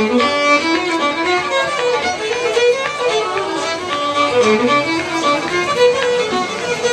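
Solo violin playing a fiddle tune, the melody moving quickly from note to note.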